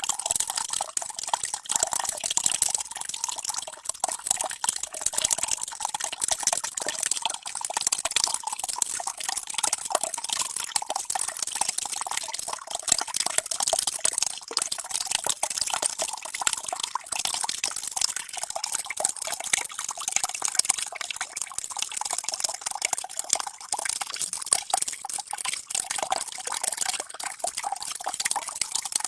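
Water running and splashing steadily, a dense stream of many small splashes and drips.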